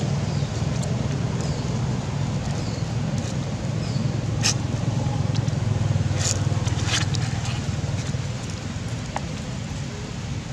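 Steady low motor rumble, with a few short dry crackles of a baby macaque handling a stiff dead leaf, the sharpest about halfway through.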